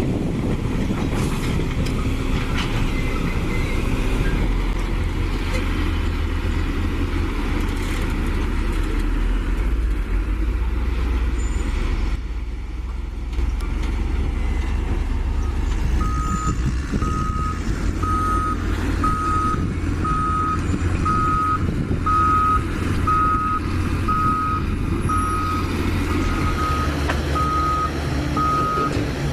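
A heavy vehicle's engine runs with a steady low rumble. From about halfway in, its reversing alarm beeps evenly, roughly one and a half beeps a second.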